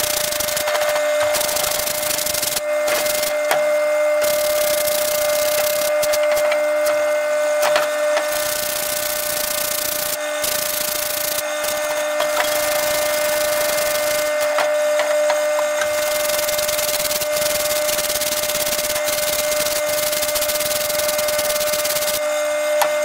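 A stiff brush scrubbing a greasy steel stump jumper in a parts washer, in scraping strokes with short pauses. A steady hum runs under it, from the washer's pump.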